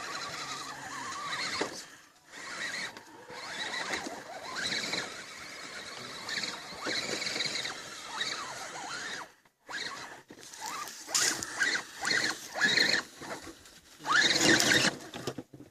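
Radio-controlled rock crawler's electric motor and gearbox whining in short, irregular pulls of throttle, the pitch rising and falling with each pull, as the crawler works its way over an obstacle. The pulls are louder near the end.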